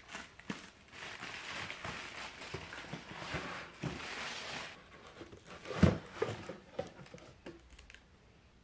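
Cardboard and a white plastic mailer rustling and crinkling as a parcel is unpacked by hand, for about five seconds. Then a few light knocks, with one loud thump about six seconds in, as the box and its contents are handled.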